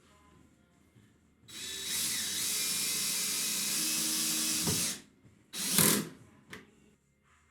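Craftsman V20 20-volt cordless hammer drill running free for about three and a half seconds with a steady motor whine, then a brief second trigger pull about a second after it stops.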